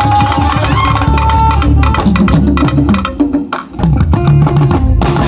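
Live band music driven by conga drums and other percussion, with a held high note over the first second and a half and a brief drop about three and a half seconds in.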